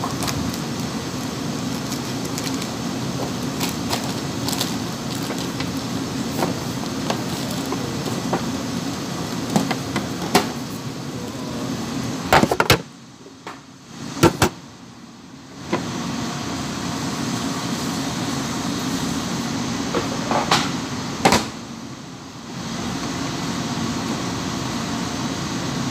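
Steady low machine hum of a kitchen, with scattered clicks and knocks from handling at a sushi counter. The hum cuts out for a few seconds about halfway through and again briefly later on.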